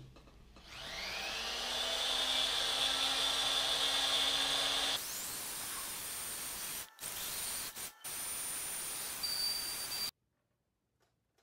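Flex-shaft rotary tool winding up with a rising whine, then running at a steady high speed while its bit works along the edge of a vinyl stencil on a steel axe head. The sound shifts suddenly about halfway through, cuts out briefly twice, and stops abruptly near the end.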